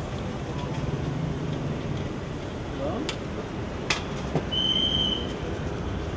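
Steady low background noise of a street cooking stall, with two sharp metallic clinks, a little after three and four seconds in, as a slotted steel ladle knocks against the kadai and steel colander while a puri is lifted out. A brief high whistle-like tone sounds near five seconds.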